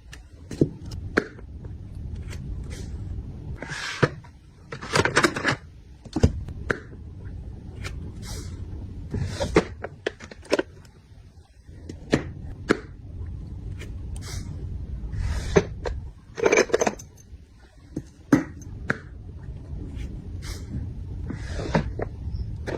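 Small items and packaging being handled at close range: irregular clicks, taps and short rustles, over a steady low hum.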